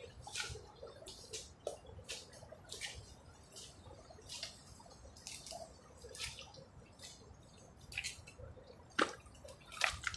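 Wet mangrove mud and water squelching and dripping as hands dig in a waterlogged mud crab burrow: a string of irregular small wet clicks and plops, with two louder ones near the end.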